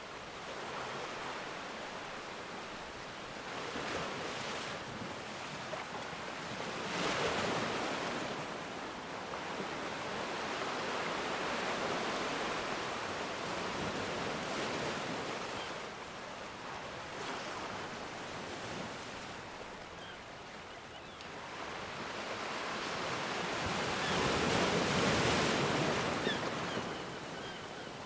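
Ocean waves breaking and washing ashore, the surf swelling and easing off, with the biggest waves breaking about a quarter of the way in and again near the end.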